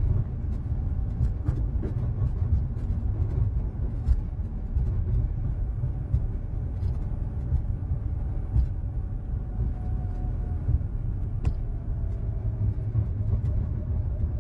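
ULTra personal rapid transit pod running along its concrete guideway, heard from inside the cabin as a steady low rumble with scattered light clicks and knocks.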